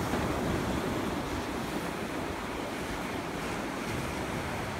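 Ocean surf breaking and washing up the sand in a steady rush, with wind on the microphone.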